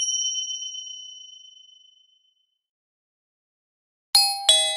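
Sound-effect chimes: one bright ding rings at the start and fades away over about two seconds. After a stretch of dead silence, a two-note falling ding-dong sounds near the end.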